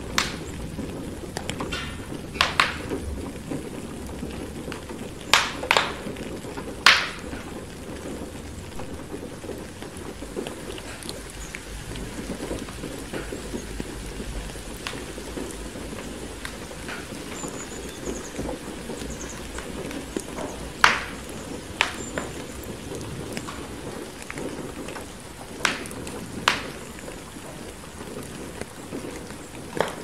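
Steady rain with a low rumble, mixed with a wood fire crackling. About ten sharp pops are scattered through it, bunched in the first quarter and again about two-thirds through.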